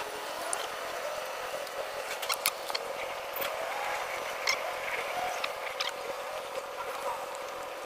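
Scattered light clicks and taps of parts and tools being handled while the starter motor is fitted back onto the scooter, over a steady background hiss.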